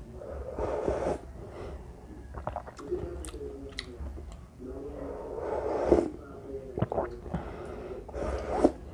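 Close-up eating sounds from a mukbang: sips and slurps of cheese ramen broth from a spoon, with chewing of noodles and a few short sharp clicks between them.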